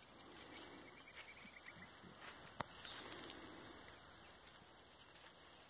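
Near silence: faint outdoor ambience with one sharp click about two and a half seconds in.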